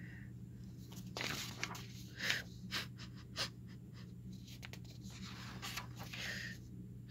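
A person blowing out breath in several soft, separate puffs, like an icy wind, over a faint steady hum.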